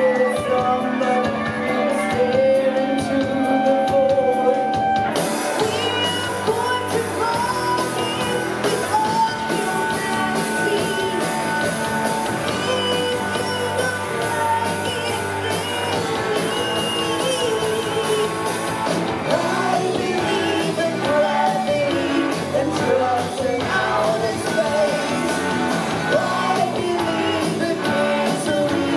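Live rock band playing, with a woman singing over electric guitars, bass and drum kit; the band's sound fills out about five seconds in.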